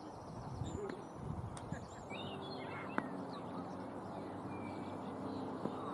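Quiet open-air ambience with birds chirping and faint distant voices. A faint steady hum comes in about two seconds in, and there is a single sharp click about a second later.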